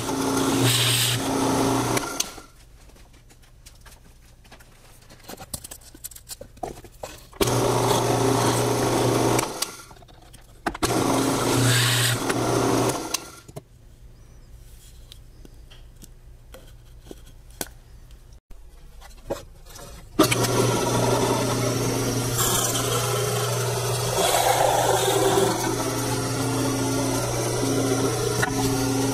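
Drill press running and boring into wood, in short stretches: it runs for about two seconds, stops, runs twice more for two to three seconds each with a pause between, then after a longer quiet spell runs steadily from about twenty seconds in. A steady motor hum underlies each run.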